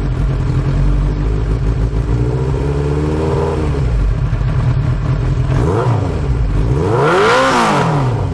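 Yamaha XJ600N's air-cooled inline-four running through a Delkevic stainless exhaust, revved up gently about two seconds in and then blipped twice more sharply near the end. The exhaust is blowing at a clamped header joint.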